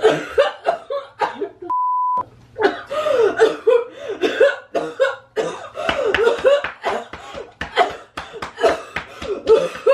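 A person coughing and gasping in a long, continuous fit of short, loud bursts: the fake blood-coughing of the prank. A single steady half-second beep cuts in about two seconds in.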